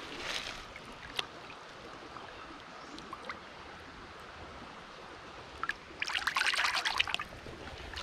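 Creek water running steadily over rocks, with a short louder burst of crackling noise about six seconds in.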